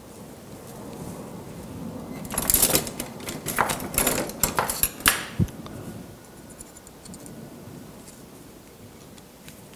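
Rustling and crackling from a Japanese white pine bonsai branch being handled and wired: needles and wire brush and scrape together for about three seconds, ending in a sharp click and a short low thump. Faint ticks of handling follow.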